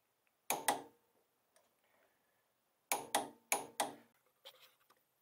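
Click-type torque wrench, set to 45 ft-lb, clicking as it reaches torque on the coilover's lower shock bolt: two sharp clicks about half a second in, then four more in quick pairs about three seconds in.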